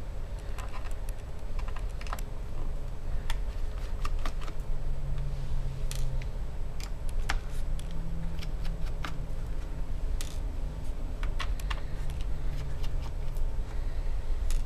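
Irregular small clicks and taps of a pentalobe screwdriver and tiny screws on a MacBook Air's aluminium bottom case as the side screws are taken out and handled, over a low steady hum.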